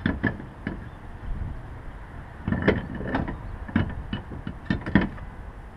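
Spare wheel being fitted onto a car's wheel hub: a series of short knocks and clinks, a few at the start and a dense run from about halfway in.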